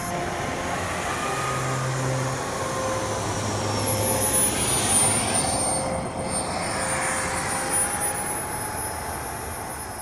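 Small turbine engine of a model jet running with a high whine over a rushing noise. The whine rises briefly, then falls slowly and holds steady at low power.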